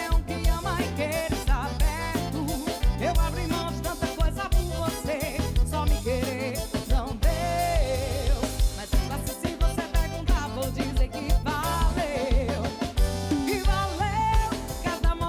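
Live band music: a steady drum beat and bass under a wavering lead melody.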